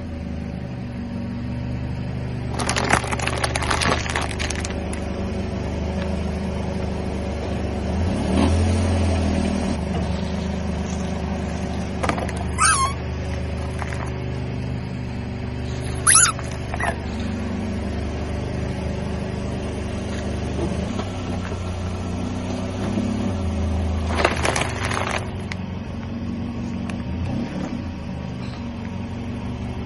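A car engine running steadily at low speed while its tire rolls over and crushes objects, giving a few bursts of crackling and crunching, with two sharp squeaks that fall quickly in pitch partway through.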